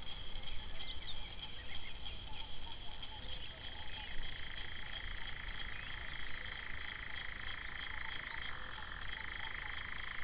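Evening chorus of frogs: a steady, high-pitched calling, joined about four seconds in by a second, lower-pitched steady chorus, with scattered short chirps over it.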